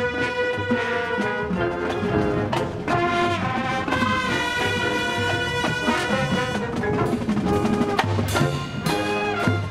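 Marching band playing: the brass section holds sustained chords over percussion, and the percussion hits come thicker in the last couple of seconds.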